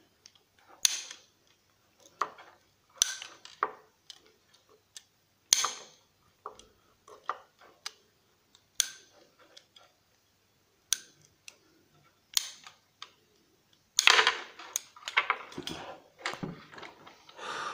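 Scattered sharp clicks and knocks of a record player's plastic and metal parts being handled as its speed-select potentiometer and wiring are pulled out by hand. About fourteen seconds in comes a denser run of clattering and rustling.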